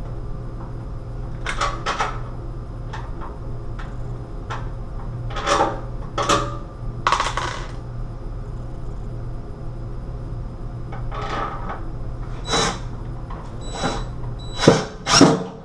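Hands and tools working on a plastic medicine cabinet box and its screws: scattered light clicks, knocks and small metallic clinks. A sharper pair of knocks near the end is the loudest.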